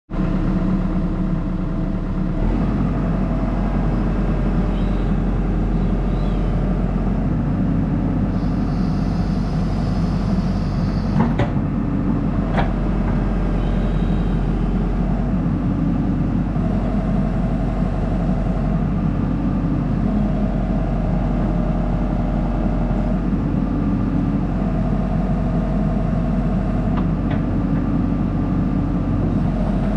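Hitachi excavator's diesel engine running steadily, with a higher whine that comes and goes in stretches of a few seconds as the hydraulics are worked. Two sharp clicks or knocks come near the middle.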